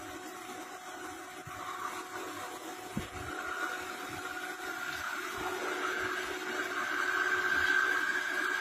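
Nakamura-Tome TW-20 CNC lathe running a cut: a steady machine hum with a higher whine that grows louder in the second half, over the hiss of coolant spraying in the enclosure, with a few faint knocks.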